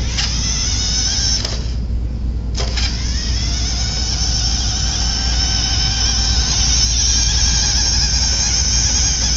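Radicame R-900 radio-controlled toy car's small electric drive motor and gears whining as it drives across the floor. It cuts out about a second and a half in. About a second later it starts again with a rising whine as it speeds up, then runs steady.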